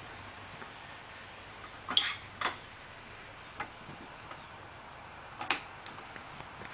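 A few sharp metal-on-metal clinks from a hand tool and the steel parts of a Van Norman boring bar being loosened and adjusted. The loudest comes about two seconds in with a brief ring, with lighter clinks just after it and again later, over a faint steady hum.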